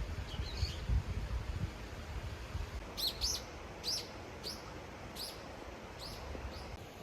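A small bird chirping: a string of about seven short, high chirps in the second half, over a low rumble in the first moments.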